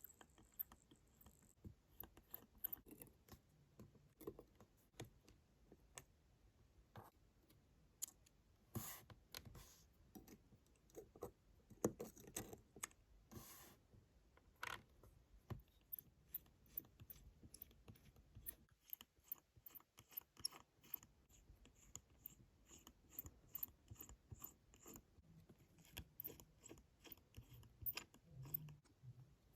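Faint clicks, taps and light scrapes of small metal watchmaker's tools working on a Waltham pocket watch movement. In the second half a faint, even ticking runs on: the movement is ticking.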